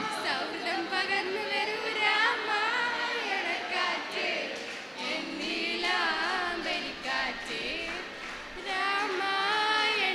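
A group of young people singing a song together in chorus into a stage microphone, in phrases of a few seconds with short breaks between them.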